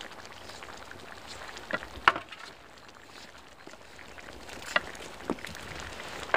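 Potatoes being peeled with a kitchen knife and set down on a wooden cutting board: a handful of sharp taps and knocks, the loudest about two seconds in, over a faint steady background hiss.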